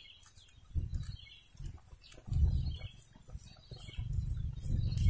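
Riverside outdoor ambience: faint bird chirps with a few low rumbling thuds, the strongest about two and a half seconds in. A thin steady high whistle stops about four seconds in.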